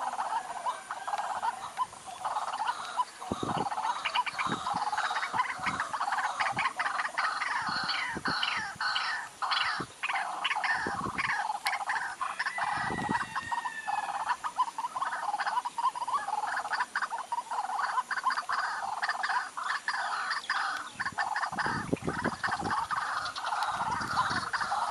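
A dense chorus of many animals calling at once, overlapping rapid croaks and chirps with short clicking pulses throughout, and one brief gliding whistle partway through.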